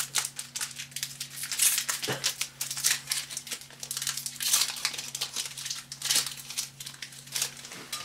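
A plastic Magic: The Gathering booster pack wrapper being torn open and crinkled by hand: an irregular run of sharp crackles and rustles. A steady low hum sits underneath.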